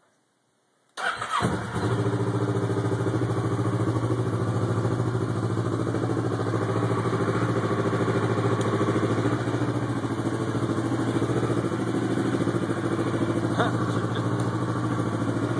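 A 2009 Kawasaki Ninja 650R's parallel-twin engine starts about a second in, then idles steadily.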